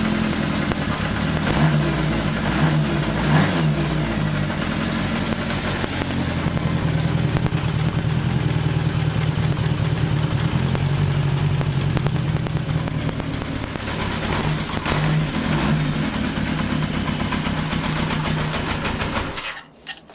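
1982 Kawasaki 750 LTD motorcycle engine running on its first start after a rebuild, revved a few times in the first seconds and then held at a steady run. It shuts off suddenly just before the end. The carburetors are not yet adjusted and the engine runs on makeshift air filters, so the owner says it still needs a lot of adjustment.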